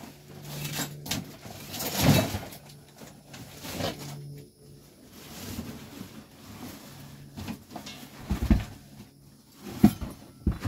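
Rummaging through stored junk: items being shifted and handled, giving scattered clunks and knocks with rustling, the sharpest knocks near the end, over a faint low hum.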